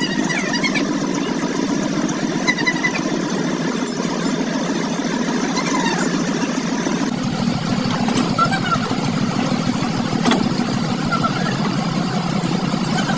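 Truck engine running steadily, its sound deepening about seven seconds in.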